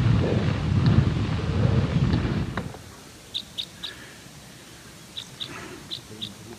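Riding noise of a mountain bike on snow: wind buffeting the camera microphone and a low tyre rumble, cutting off suddenly about two and a half seconds in. Then a small bird gives short high chirps, three in quick succession and then four more.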